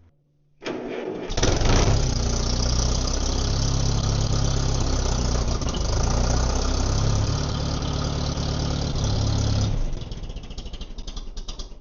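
Allis-Chalmers tractor's 226 cubic inch four-cylinder gasoline engine on a 6-volt starter, cranking only briefly before it fires and runs steadily. A standard easy start for this engine: it barely cranks and fires right up. Near the end the sound drops away into a fading run of pulses.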